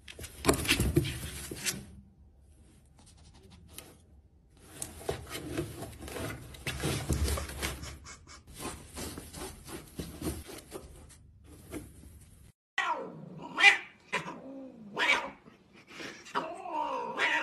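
Rustling and scratching of a cat moving about inside a torn cardboard box. Later, a cat yowls several times, each call gliding up and down in pitch.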